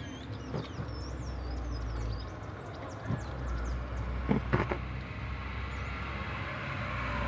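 Low rumble of a motor vehicle that grows louder near the end, with small birds chirping during the first few seconds and a few faint clicks.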